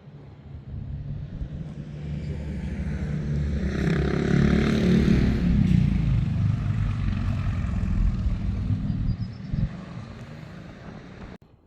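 A motor vehicle passing close by: its engine grows louder to a peak about halfway through, then fades, until the sound cuts off abruptly near the end.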